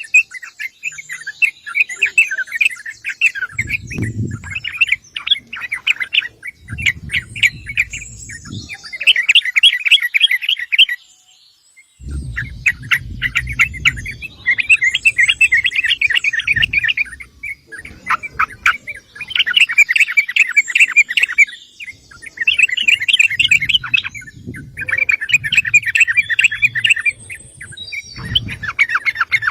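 Yellow-vented bulbul calling in bursts of rapid short chattering notes, phrase after phrase with brief pauses and a longer break about eleven seconds in.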